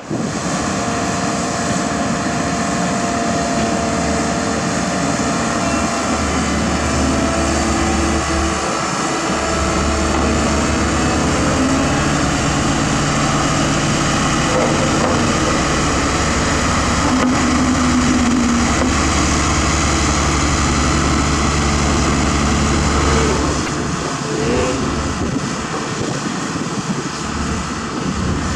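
Diesel engines of a Kobelco excavator and a HAMM single-drum soil compactor running steadily, a constant deep drone.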